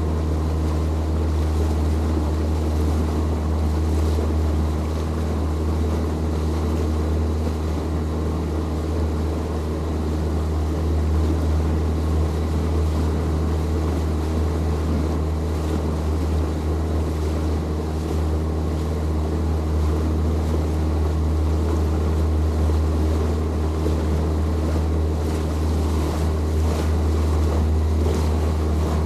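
Boat motor running at a steady speed: a constant low drone over an even hiss of wind and water.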